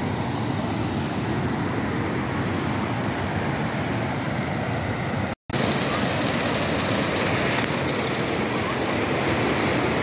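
Steady rushing of a waterfall. About halfway it cuts off for an instant and comes back brighter and louder, with water pouring from a pipe spout and splashing onto rock in front of the falls.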